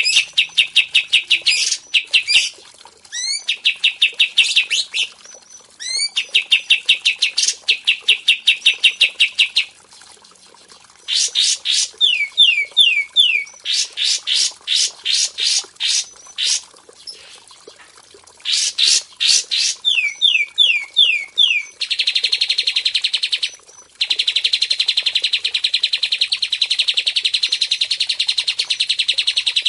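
Songbird song of the kind played as masteran: bursts of rapid repeated notes, broken by short rising whistles. In the last quarter it becomes one long, unbroken fast trill.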